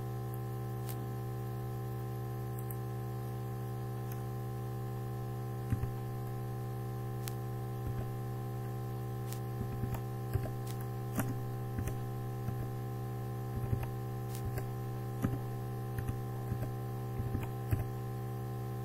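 Computer keyboard keys tapped in short, irregular runs, starting about six seconds in and continuing until near the end, as a captcha phrase is typed. A steady electrical mains hum runs underneath.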